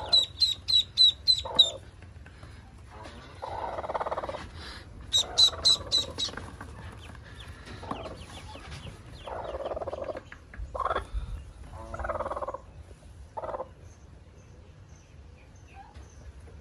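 Ducklings peeping in quick runs of high, thin calls, about five a second, at the start and again about five seconds in, with a broody hen's low clucks in between.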